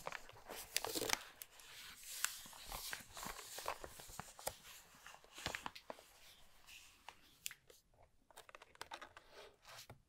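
Thin translucent bio-plastic sleeve around a mechanical keyboard crinkling and crackling as it is gripped and lifted out of a cardboard box. The rustling thins out in the last few seconds to scattered light crackles and taps.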